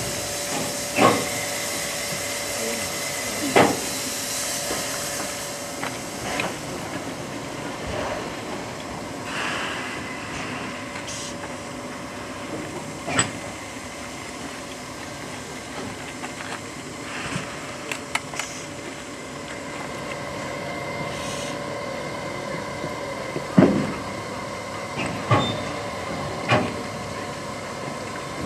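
Steam locomotive D51 200 standing with steam hissing steadily, the hiss heavier in the first few seconds. About eight short, sharp knocks fall at uneven intervals, the loudest near the end.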